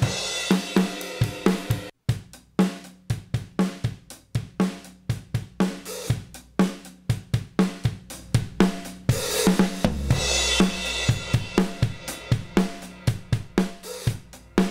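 Drum kit playing a steady beat of kick, snare and hi-hat, with a cymbal crash ringing out about nine seconds in. The playing cuts out for an instant about two seconds in.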